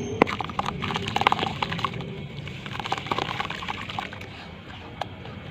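Dry brown sand or cement clumps being crushed and crumbled into water, a dense run of crisp crackles and crunches that thins out after about three seconds.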